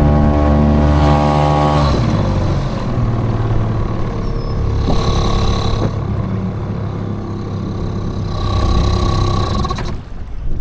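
Small 3.3-horsepower outboard motor on a johnboat running under way, throttled back about two seconds in to a lower, steady run, then shut off near the end as the boat reaches its spot.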